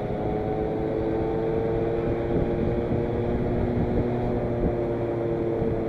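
A 50cc two-stroke automatic scooter engine running flat out at a steady, high-revving note over a low rushing wind noise. It is near its top speed and has run out of breath, pulling heavily above about 45 km/h.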